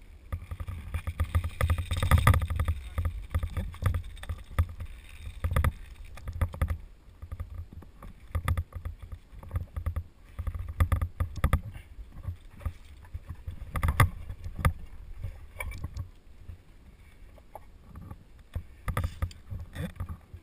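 Irregular knocking, clinking and rubbing of caving gear on a tyrolean traverse line (rope, cable, carabiners and pulley) as the caver hauls himself along hand over hand. The camera on his helmet picks it up close, with a low rumble of handling noise under it. The knocks are loudest about two seconds in and again around fourteen seconds in.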